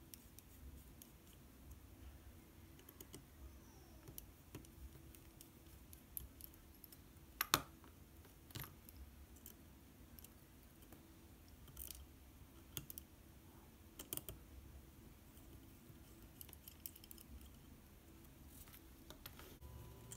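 Faint, scattered clicks and ticks of a small screwdriver and plastic parts being handled as the canopy screws of a micro drone are undone, with a few sharper clicks around the middle, over a low steady hum.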